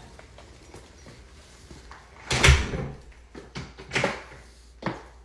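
A few sudden thumps and knocks: the loudest about two and a half seconds in, then two smaller ones about four and five seconds in.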